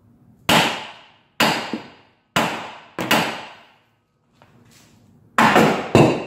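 Hammer blows on the steel steering knuckle of a 2002 Ford Excursion's front axle, knocking the knuckle loose from its ball joints. About seven sharp metallic strikes in irregular ones and twos, each ringing briefly, with a quick cluster of three near the end.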